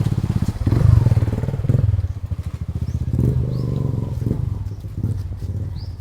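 A motorcycle engine running at low revs, its rapid firing pulses swelling about a second in and again around three seconds in, then easing off toward the end.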